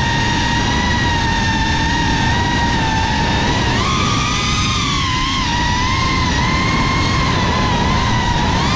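GEPRC CineLog35 FPV drone's brushless motors and propellers whining steadily, heard from the GoPro mounted on it, the pitch wavering with throttle and rising briefly about four seconds in as the drone banks. A rushing noise runs underneath.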